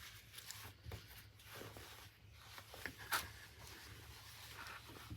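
Faint rustling and a few light taps of fabric bundles and paper packaging being handled, the sharpest tap about three seconds in.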